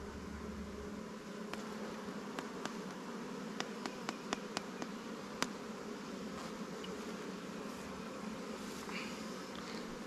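Honey bees buzzing steadily as a low hum over an opened hive. In the middle comes a run of about ten sharp clicks, the last one the loudest.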